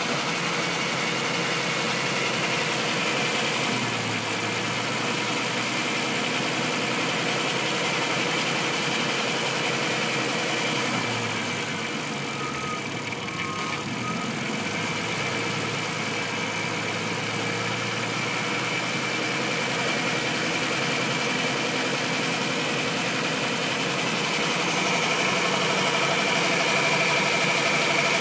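Volkswagen Transporter T5 engine idling steadily with a knock at idle, the fault being investigated. It gets slightly louder near the end.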